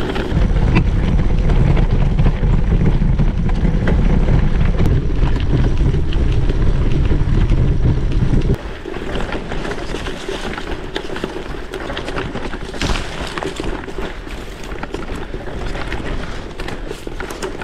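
Wind buffeting the action camera's microphone while riding a gravel bike, a loud low rumble that drops off suddenly a little past halfway. After that, lighter wind noise with many small clicks and rattles from the tyres and bike on rough trail.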